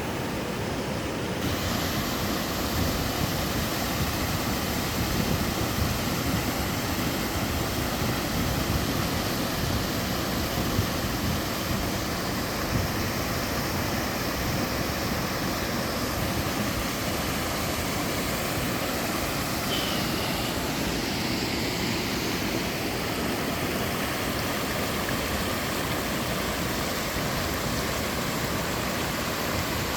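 Two-tiered waterfall in a mountain valley stream, water pouring and splashing in a steady, even rush.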